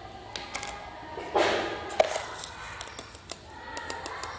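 A teaspoon scooping sugar and adding it to a glass of squeezed lime juice: light clicks and taps of the spoon against the containers, with a brief rustle about one and a half seconds in and a quick run of small clicks near the end.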